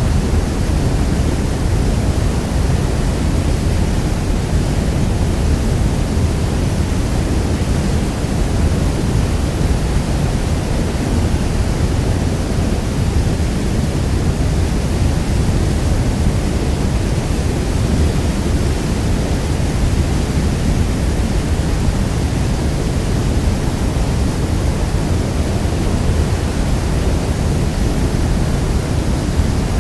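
Niagara Falls thundering: a loud, steady rush of falling water, deepest and strongest in the low range, with no changes.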